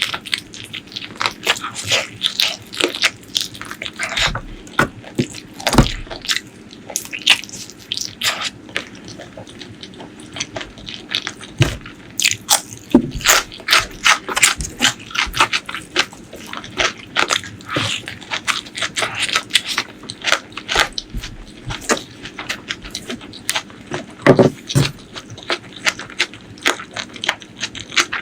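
Close-miked eating sounds: wet chewing, biting and crunching, with a dense, irregular run of sharp mouth clicks and smacks and a few heavier thumps.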